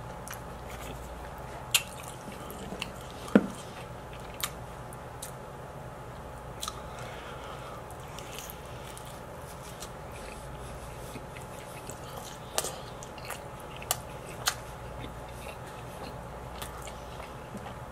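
Close-miked chewing and biting of pizza: soft wet mouth sounds with several sharp smacks and clicks at irregular moments, the loudest about three and a half seconds in, over a faint steady hum.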